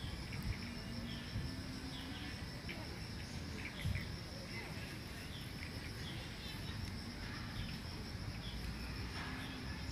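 Insects trilling steadily in the trees, a high, finely pulsing drone, with scattered short chirps over a low outdoor rumble. There is one soft low thump about four seconds in.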